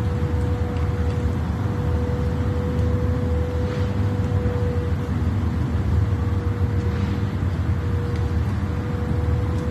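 A vehicle's steady low rumble, with a single steady mid-pitched hum over it.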